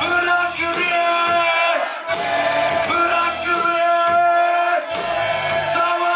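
Live hip-hop music through a club PA: a beat with a held, steady synth note and bass notes that come and go, with a rapper's voice on the microphone.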